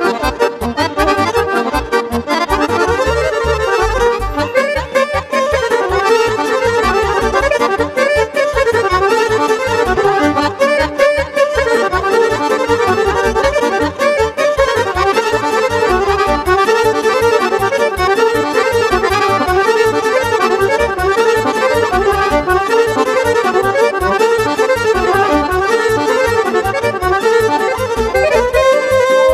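Instrumental Romanian party music (hora and sârba style) played live, led by a Roland digital accordion with electric violin and keyboard accompaniment over a steady bass beat.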